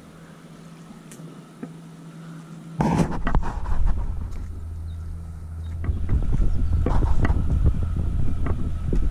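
Wind buffeting the camera microphone: a loud, uneven low rumble that starts suddenly about three seconds in and grows gustier near the end, over a steady low hum.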